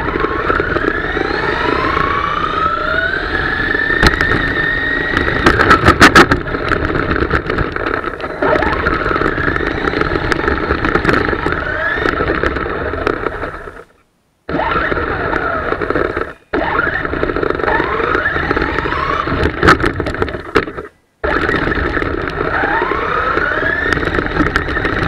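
Electric motor of a WLtoys A979 RC monster truck whining and rising in pitch again and again as it accelerates, over the rattle and crunch of its tyres on gravel, with a run of sharp stone clicks about six seconds in. The sound cuts out briefly three times in the second half.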